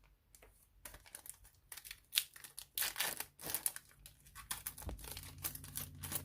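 Plastic foil wrapper of a trading-card pack crinkling as it is torn open, in a dense run of irregular crackles.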